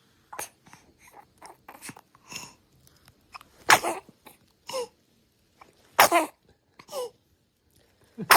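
A baby sneezing: three sharp sneezes about four seconds in, about six seconds in and at the very end, each with a short falling vocal tail. A smaller voiced sound follows about a second after each of the first two, and faint short breaths come before the first.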